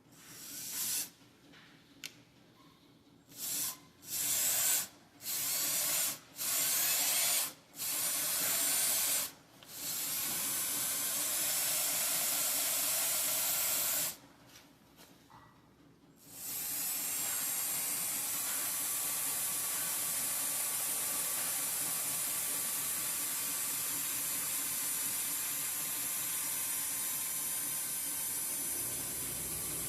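Electric drill boring into a broken-off bolt in an engine block. It runs in several short trigger bursts of a second or so, then for about four seconds, and then steadily from about halfway on.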